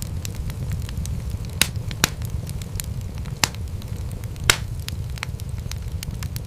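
Wood fire in a fireplace crackling, with frequent small snaps over a steady low rumble of flames. A few louder pops stand out, the loudest about four and a half seconds in.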